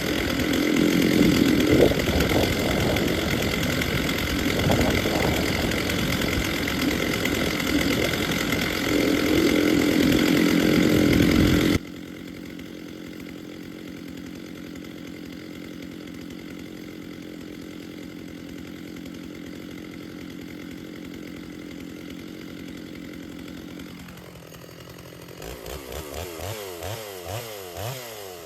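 Stihl two-stroke chainsaw running as it warms up, loud and steady with some rises and falls. About twelve seconds in it drops abruptly to a much quieter steady running sound, which changes again near the end into a wavering pulse.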